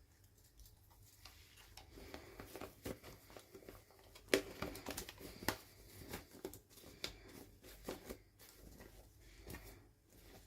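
Hands handling toy packaging and small plastic pieces during an unboxing: a run of small clicks, taps and crinkles, the sharpest about four seconds in.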